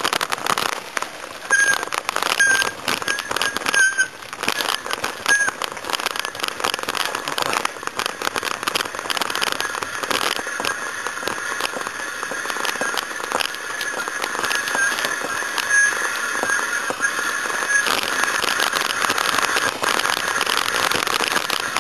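Bicycle tyres rolling fast over a rough forest road, with a dense, irregular crackling and rattling. A thin high whine comes and goes through it, steadiest in the second half.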